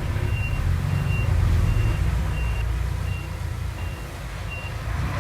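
Backup alarm of a heavy construction machine beeping steadily, a short high beep about every three-quarters of a second, over the low, steady running of its diesel engine.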